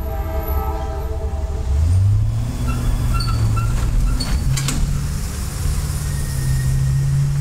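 Distant CSX freight train: the lead locomotive's multi-note air horn sounding, cutting off about a second in, over the low rumble of the train moving away. A low engine drone then rises slightly in pitch, with a few knocks from the cars in the middle.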